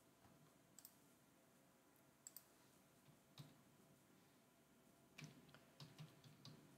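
Near silence with faint, scattered clicks of computer keyboard keys, then a quick run of about six keystrokes about five seconds in, as a password is typed.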